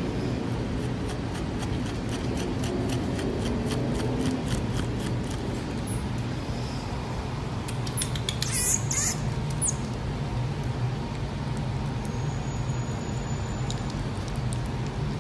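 A common marmoset eating soft baby food, with a run of quick small clicks of licking and smacking in the first few seconds and short high-pitched squeaks about two-thirds of the way in, over a steady low hum.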